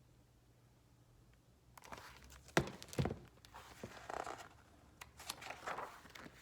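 Faint rustling of paper and a book being handled as a page is turned, with two sharp taps or clicks about halfway through.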